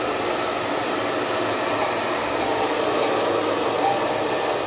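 Handheld electric hair dryer running steadily, blowing air onto short hair as it is set upright with a round brush.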